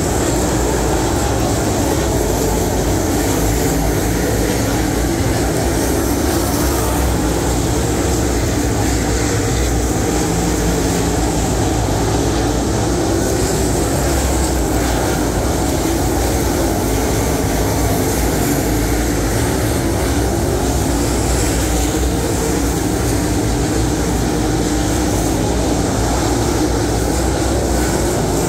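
Dirt late model race cars' V8 engines running hard around a clay oval, a steady loud drone from the pack.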